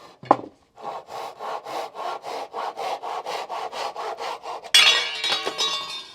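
Handsaw cutting a rough-cut cedar board in quick even strokes, about four a second, after a single knock at the start. Near the end the strokes give way to a sudden louder clatter that rings briefly and dies away.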